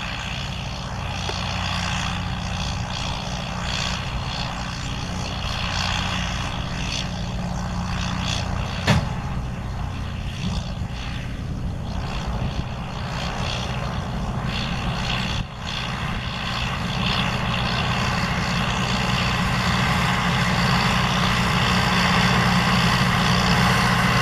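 John Deere 6520L tractor's diesel engine running steadily under load while pulling a working Vermeer round baler through hay. One sharp knock about nine seconds in, and the engine grows louder over the last third as the tractor comes closer.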